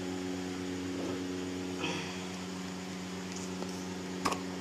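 Steady electrical hum over a faint hiss. There is a brief rustle about two seconds in and a single sharp click near the end.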